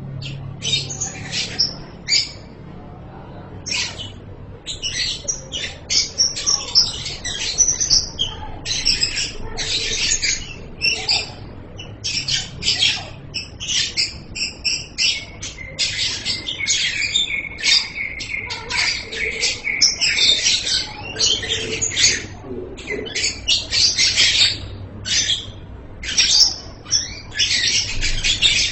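Lovebird chattering in rapid runs of high-pitched chirps, broken into short bursts at first and then nearly continuous, with one long unbroken stretch of chatter in the middle.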